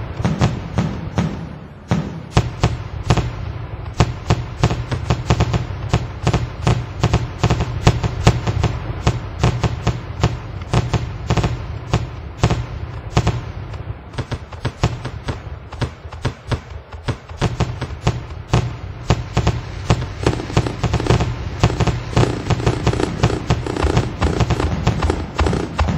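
Fireworks crackling and popping: many quick, irregular bangs packed close together without let-up, over a steady low rumble.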